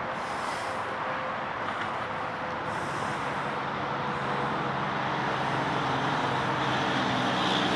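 Steady noise of interstate highway traffic, with a truck's engine growing louder in the second half as it comes closer.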